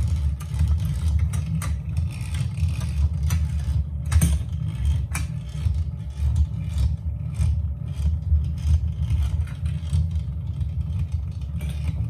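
Gone Fishin' toy game's motor and gears running steadily, turning the board with a low buzzing hum, with a few sharp plastic clicks from the fish and the toy rod.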